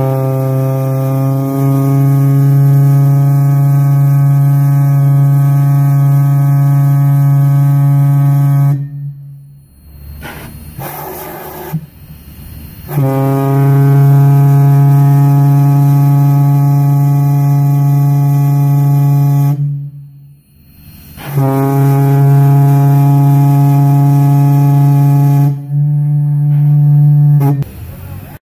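Large deep-toned whistle blown on compressed air, sounding three long steady blasts of several seconds each, the pitch rising slightly as each blast opens.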